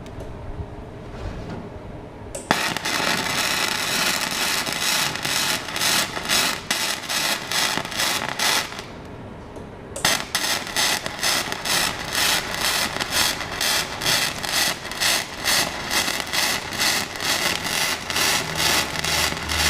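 Flux-core MIG welding arc crackling and spitting from a Magmate 150 welder, in two runs: it strikes about two and a half seconds in, breaks off briefly around nine seconds, then strikes again and keeps going.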